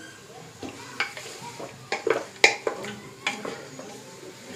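Spatula scraping and knocking irregularly against the inside of an aluminium pressure cooker pot as spiced duck meat is stirred and fried in oil, with a sizzle under it. The sharpest knock comes about halfway through.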